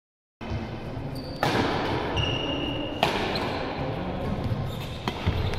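Badminton rally: racket strikes on the shuttlecock, three sharp hits about a second and a half apart, with short squeaks of court shoes in between, over a steady hall background.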